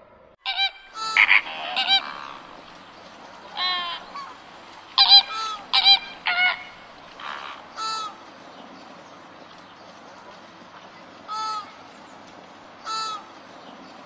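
A flock of flamingos honking: a quick run of short, nasal, goose-like calls over the first eight seconds, then two single calls near the end, over a faint steady background hiss.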